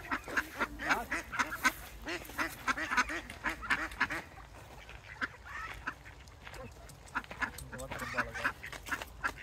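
Ducks quacking in quick, short, repeated calls while being hand-fed, a dense run for the first four seconds or so, thinning out, then picking up again near the end.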